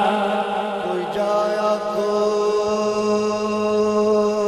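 Naat chanting voices holding a steady drone on a few fixed pitches, after a wavering sung phrase dies away about a second in.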